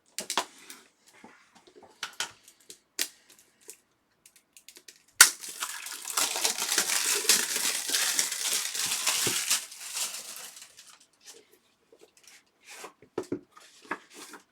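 Scattered light clicks and taps of handling. About five seconds in comes a sharp snap, then about five seconds of dense crinkling and tearing of plastic wrapping as a sealed trading-card pack is torn open.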